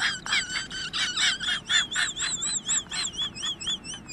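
High-pitched animal chirping: quick repeated chirps giving way to wavering, warbling notes, several a second.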